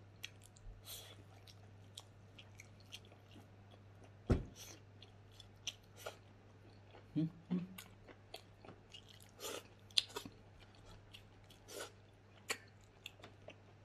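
A person eating smoked pork leg by hand close to the microphone: chewing and biting, with scattered short clicks and smacks from the mouth and fingers. A faint steady hum runs underneath, and there is one louder thump about four seconds in.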